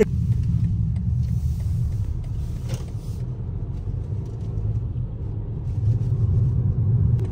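Road noise inside a moving car: a steady low rumble, with a faint hiss over the first three seconds.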